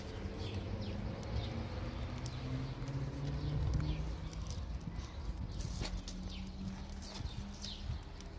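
Bundle of dry straw burning after being lit with a match, crackling with irregular small snaps and pops over a low steady rumble.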